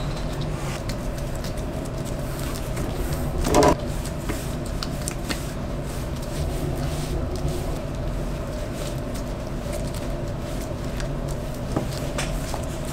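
Steady low rumble with a faint hum, with one brief louder clatter about three and a half seconds in.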